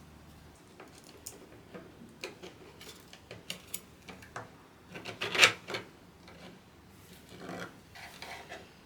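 Small parts and tools being handled on a workbench during keyboard assembly: irregular light clicks and taps, a louder clatter about five and a half seconds in, and a short scraping rustle near the end.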